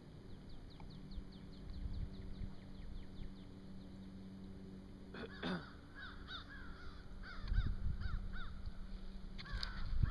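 Crows cawing repeatedly, about two calls a second, after a rapid run of high chirps from another bird. A steady low hum runs underneath.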